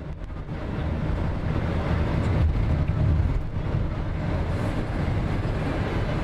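Steady rumble of a car driving along at road speed, heard inside the cabin: tyre and engine noise, fading in over the first second.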